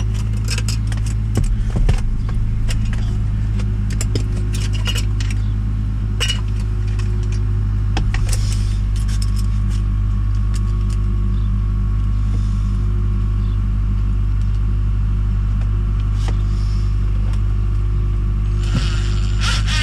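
A steady low hum throughout, with scattered small metallic clicks and clinks from hunting through screws and tools by hand.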